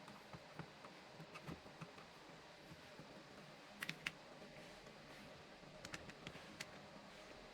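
Faint scattered clicks and light handling over quiet room hiss, with a few sharper clicks about four seconds in and again around six seconds.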